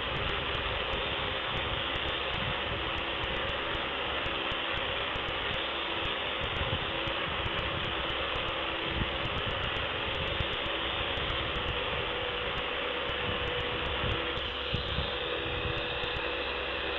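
A steady, even hiss with a low mechanical hum, like a fan or air conditioner running, with a faint steady tone joining in near the end.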